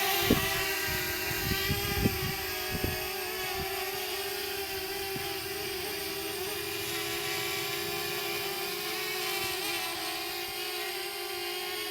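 DJI Mavic Mini quadcopter flying, its four propellers giving a steady high whine. A few low thumps come in the first three seconds.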